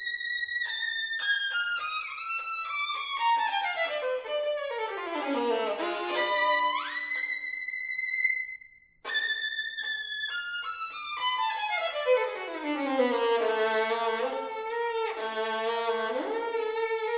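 Violin playing a fast virtuosic passage: quick runs sweeping from high notes down to low ones, with a short break just past halfway.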